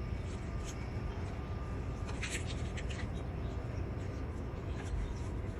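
A few short scrapes and clicks of filter pliers working at a stuck motorcycle oil filter, which is wedged against the exhaust pipes, over a steady low background rumble.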